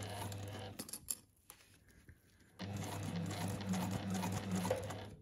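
Electric sewing machine stitching slowly along a zipper seam. It runs for under a second, stops for a couple of seconds, then runs steadily again from about two and a half seconds in, stopping near the end.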